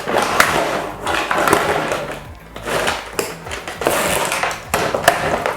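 Handling noise from unpacking a plastic toy machine gun: irregular rustling and scraping of packaging and plastic parts, over quiet background music.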